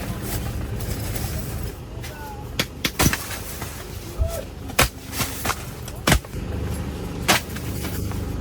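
Steady low wind rumble, with about five sharp, irregular taps or knocks through the middle.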